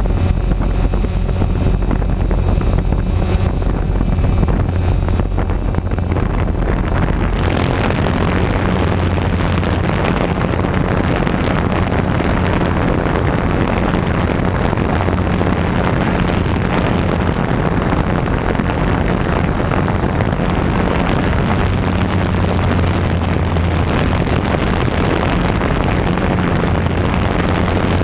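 Multirotor drone's propellers and motors buzzing steadily close to the camera, with a thin high whine over a low hum. About seven seconds in a broader rushing hiss grows louder over the buzz.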